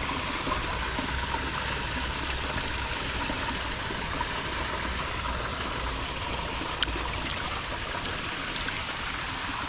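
Steady rush of water pouring from a discharge outfall into a creek, with one brief click about seven seconds in.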